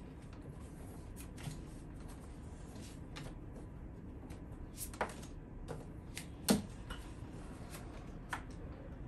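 Yu-Gi-Oh! trading cards being handled and laid face down: scattered light taps and slides of cards, the sharpest about six and a half seconds in.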